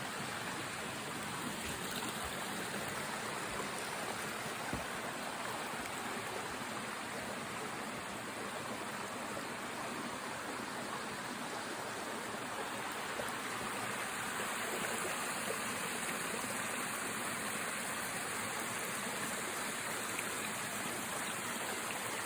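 Small woodland waterfall splashing steadily, a constant rushing of falling water.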